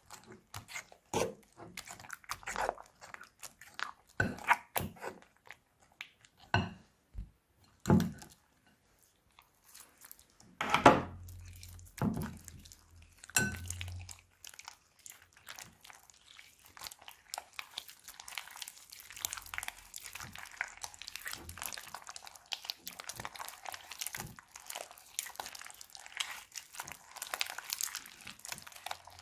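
Hands working crunchy slime: sharp crackling pops and clicks, a short pause, a few louder crunches in the middle, then a dense, steady fine crackling.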